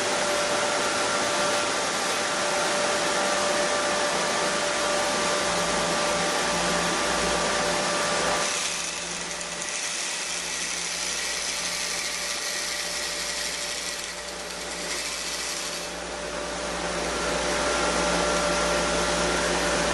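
Chili powder milling machinery running: a steady rushing hiss with a constant whine on top. It turns quieter for several seconds in the middle, then comes back to full level.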